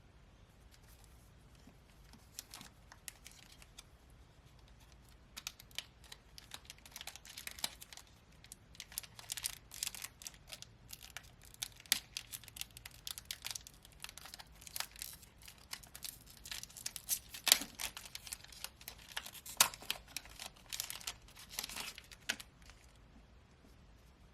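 Foil trading-card booster pack wrapper crinkling and being torn open: a run of sharp crackles and snaps, sparse at first, dense from about five seconds in, dying away a couple of seconds before the end.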